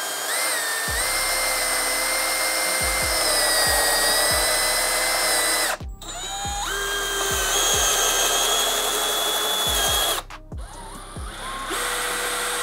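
Three 12-volt brushless cordless drill drivers run one after another driving a 2-inch deck screw into wood: a Bosch, then a Milwaukee M12, then a DeWalt. Each gives a steady motor-and-gearbox whine that cuts off abruptly, the first about six seconds in and the second about ten seconds in, and the third starts near the end. Background music with a steady beat plays underneath.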